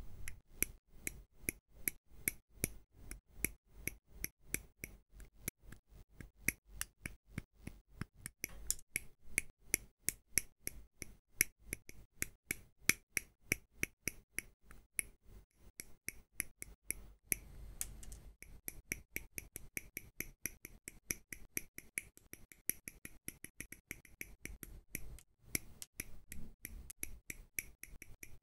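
DSPIAE 3.0 ultra-thin single-blade hobby nipper snipping plastic model-kit parts off their sprue gates. It gives a quick, even run of sharp snips, about three to four a second.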